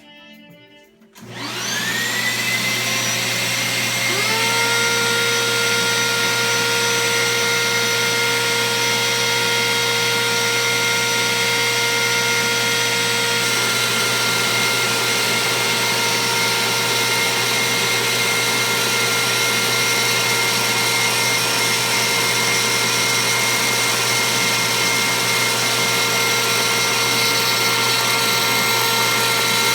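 Router motor on a router table spinning up about a second in, joined about three seconds later by a second motor starting up; both then run at a steady high-pitched whine.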